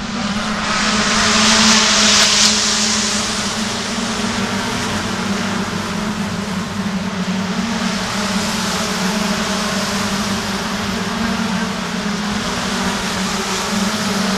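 Race cars running past on the circuit, the engine noise swelling to its loudest as cars pass close about two seconds in, then a steady drone from the field.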